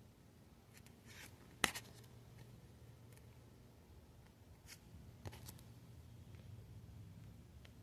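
Faint handling of Pokémon trading cards: a few soft clicks and taps, the sharpest a little under two seconds in, over a low steady hum.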